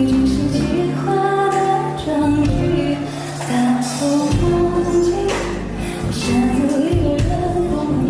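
Live pop song intro played by a band, a slow melody of held notes over a steady bass.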